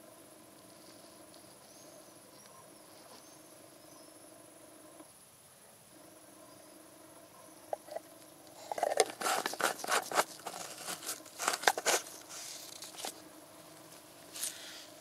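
Low steady background hum. About halfway through comes a dense run of clicks and crinkling as gloved hands grip and turn a plastic engine-oil bottle, lasting some four seconds, with one more click near the end.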